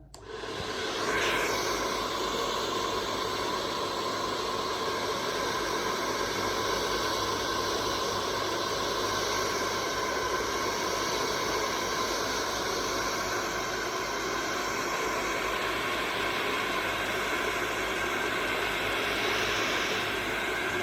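Handheld hair dryer switched on, its motor whining up to speed within about a second, then blowing steadily with a hiss of air and a faint steady whine.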